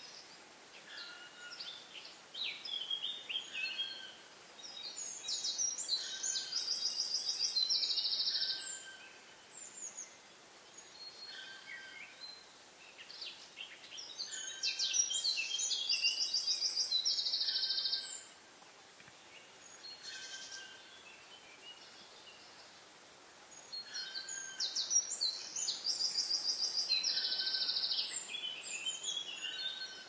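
A songbird singing the same four-second phrase three times, about ten seconds apart, each made of quick high notes and ending in a fast high trill. A short, lower note repeats every couple of seconds in between.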